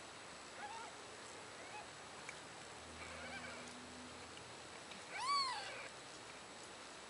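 A cat meowing: a few faint short mews, then one loud meow about five seconds in that rises and falls in pitch.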